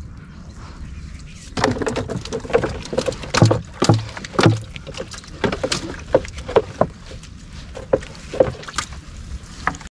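Irregular splashes and knocks in the water as a gill net is hauled by hand and live mullet are worked out of it.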